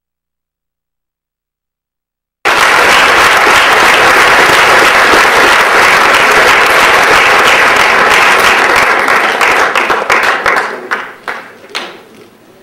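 Audience applause that starts abruptly about two seconds in, holds steady for several seconds, then thins to scattered single claps and dies away near the end.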